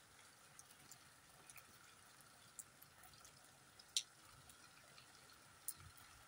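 Faint rainfall: a soft steady hiss with irregular sharp ticks of single drops landing close by, the sharpest about four seconds in.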